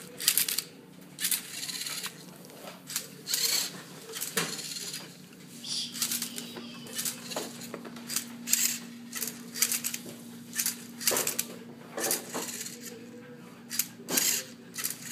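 Rubik's Cube solving robot turning the cube's faces: a run of sharp plastic clicks and clacks, one or two a second, as each move is made. A steady low hum joins about six seconds in.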